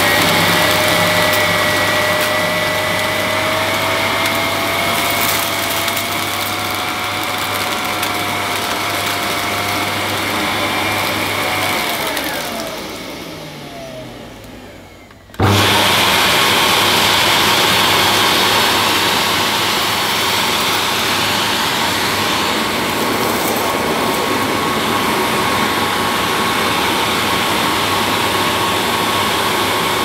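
AEG Vampyr Chroma bagged canister vacuum cleaner running at full power on carpet, with a thin whine that rises slowly. About twelve seconds in the motor is switched off and winds down in falling pitch. A few seconds later the sound jumps abruptly back to the vacuum running steadily.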